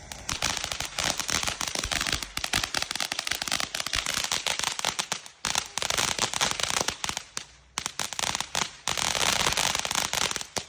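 A firework crackling: a dense, rapid rattle of loud small pops in waves, with two brief lulls, then stopping suddenly near the end.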